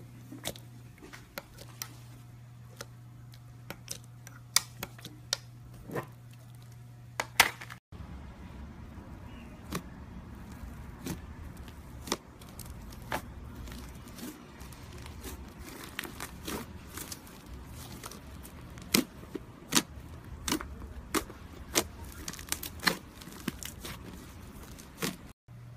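Slime being worked: stirred with a spoon in a glass cup, then fluffy slime pressed and kneaded by hand, giving a run of sharp sticky clicks and pops as trapped air bursts. A steady low hum lies under the first part.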